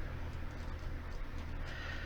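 Steady low hum of room tone with faint hiss, and no distinct event.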